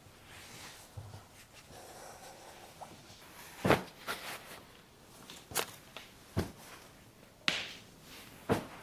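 A handful of short, sharp knocks and clicks, starting a few seconds in and spaced about a second apart, over faint room noise.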